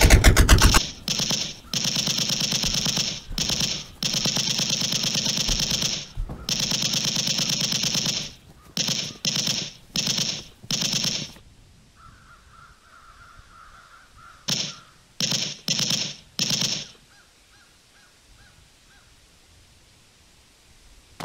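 Automatic-weapon gunfire sound effect in long sustained bursts, breaking into shorter bursts after about eight seconds. In a lull around the middle, a faint run of quick repeated high call-like notes is heard between bursts.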